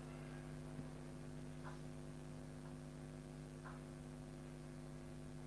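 Steady electrical mains hum with a few faint, short ticks about every two seconds.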